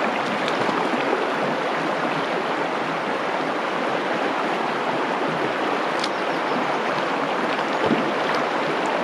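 Mountain stream rushing: a steady, even wash of running water.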